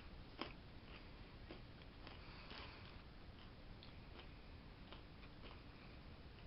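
Faint chewing of a soft honey mustard pretzel, with a few scattered soft clicks.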